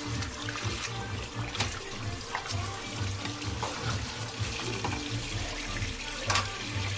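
Kitchen tap running into a stainless-steel sink while a whole carp is rinsed and rubbed by hand under the stream, with a few short knocks. Music with a steady low beat plays under it.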